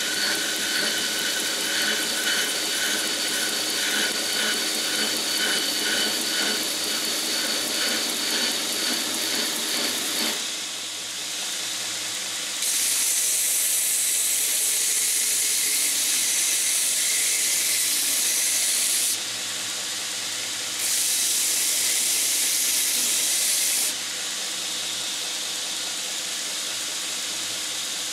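Vertical belt sander running with an epoxy-soaked corn cob handle pressed against the abrasive belt. After a change about a third of the way in, there are two long stretches of loud, high hissing grinding, with the belt running more quietly between them and after them.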